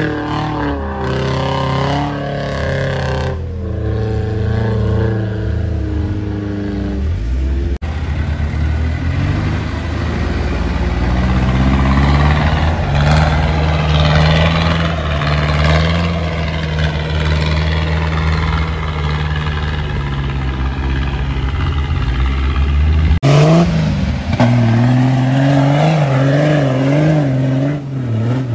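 Off-road vehicle engines running and revving on a dirt hill track, the engine note rising and falling, with sudden changes in the sound a few times.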